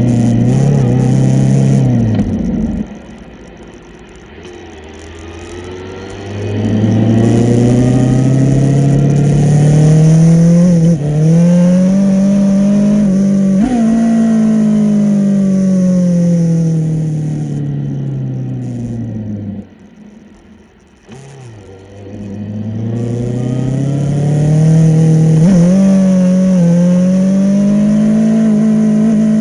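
Yamaha Fazer 600 motorcycle's inline-four engine running hard, its pitch climbing over several seconds, holding, then falling away, twice over. It fades low about three seconds in and again around twenty seconds in.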